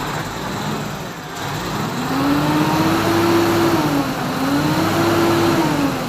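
Hino E13C inline-six diesel engine of a Hino 700 truck revved twice from idle, each time rising, holding, then dropping back. The engine is running again after a crank-only, no-start fault was fixed.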